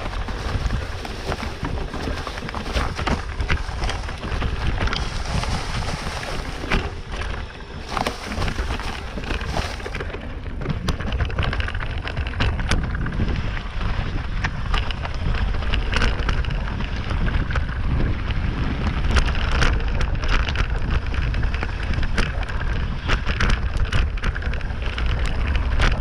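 Mountain bike riding downhill on dirt and gravel trails: wind rumbling on the microphone, with a constant patter of small knocks and rattles from the tyres on loose ground and the shaking bike.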